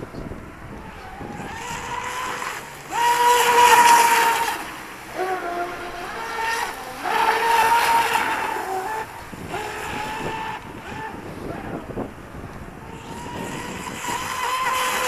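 Electric RC F1 outboard racing boat, its Leopard 3660 2550KV brushless motor on an outboard leg, making fast passes: a high whine with a hiss of spray. The sound swells and fades several times, loudest about three and seven seconds in and again near the end.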